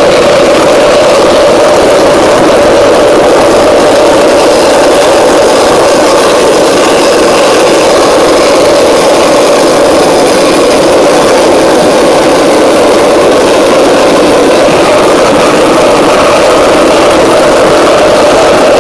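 Home-built turbocharger gas turbine running steadily under combustion: a loud, even roar with a faint high whine over it in the middle stretch.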